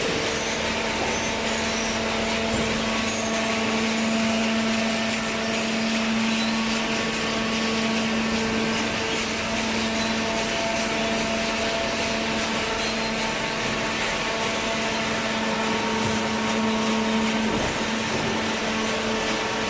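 Hydraulic vertical cardboard baler running, its motor and pump making a steady hum with a constant whine.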